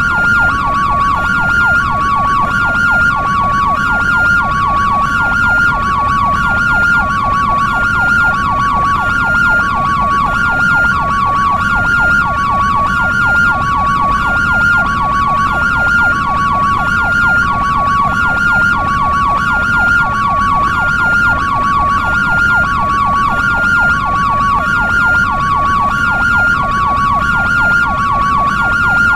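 European-style two-tone hi-lo ambulance siren, sounding a steady back-and-forth between a higher and a lower note, each held about two-thirds of a second, over a low rumble.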